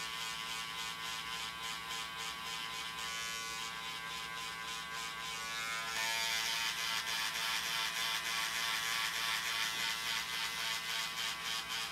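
Steady electric buzz of a small motor, with a hiss that gets louder about six seconds in.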